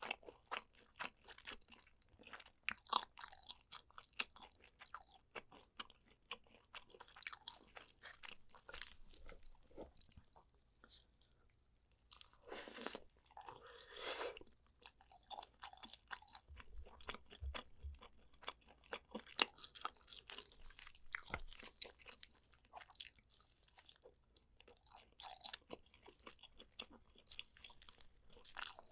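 Close-miked eating sounds of a person biting and chewing spicy soy-braised pork ribs, a dense run of short mouth clicks and smacks with a brief pause a little over ten seconds in.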